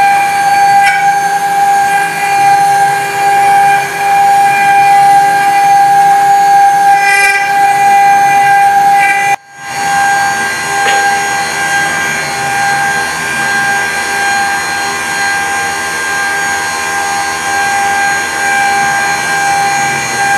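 Spindle of a small 5-axis CNC milling machine whining at one steady high pitch as a fine 1 mm engraving bit carves a wooden pipe bowl in the finishing pass. About nine seconds in the sound breaks off for a moment, then goes on a little quieter.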